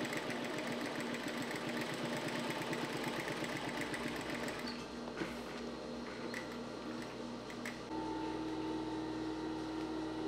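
Sewing machine stitching with a fast, even rhythm that eases off about six seconds in, followed by a few clicks and a steady hum.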